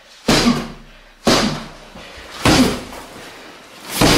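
Heavy thuds of martial-arts training blows, about one a second, four in all, each ringing out briefly in a bare room.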